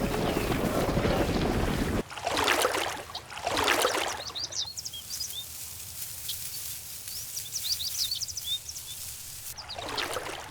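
Water churning and splashing heavily, then after a sudden cut, a quieter wetland scene with small birds chirping repeatedly and a few swells of splashing water.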